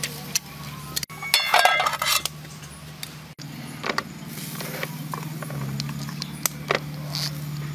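Metal tongs clinking and scraping against a wok while stirring chicken feet in water, over a steady low hum. The busiest clatter comes between about one and a half and two seconds in, with scattered single clicks after it.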